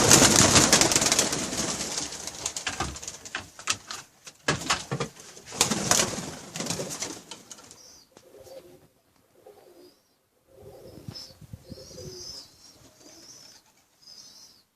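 Pigeons cooing, after several seconds of loud rustling and sharp knocks that die down about halfway through.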